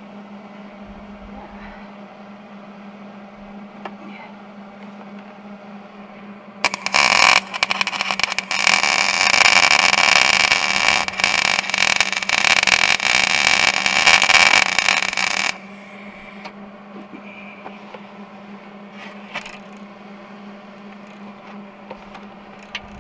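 Wire-feed (MIG) welder arc crackling and sizzling steadily for about nine seconds as a bead is laid on the steel of a snowmobile ski, starting about seven seconds in and cutting off sharply. A steady low hum runs under it throughout.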